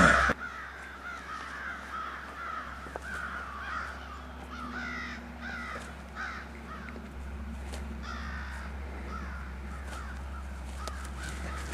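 A bird calling over and over in short repeated notes, several a second, fading in the second half.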